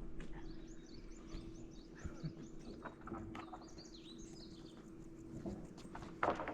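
Small birds chirping over a steady hum. Near the end a loud, irregular crackling starts: the wind turbine's abnormal "baribari" noise, which it does not normally make and which the uploader suspects comes from wear.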